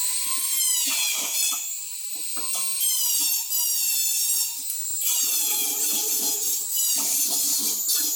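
High-pitched whine of a small high-speed electric power tool working on metal, its pitch sagging and recovering as it is pressed on. Rough scraping contact noise runs underneath, heavier in the second half.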